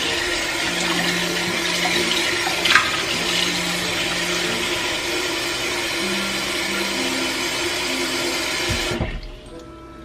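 Kitchen tap running into a ceramic bowl held under it in a stainless steel sink, an even rush of water that cuts off about nine seconds in when the tap is shut.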